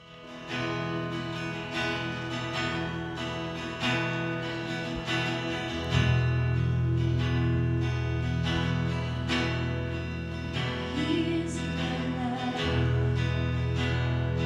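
Acoustic guitar strumming a steady chord pattern as a song's intro, starting about half a second in; a woman's voice begins to sing near the end.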